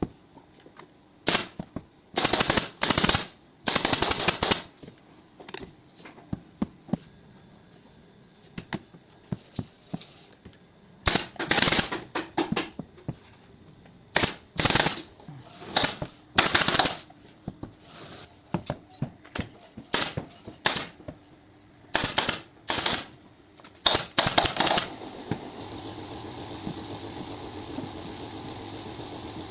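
Pneumatic upholstery staple gun firing in quick rapid strings of shots, burst after burst with short pauses between. Near the end the shots stop and a steady machine hum starts.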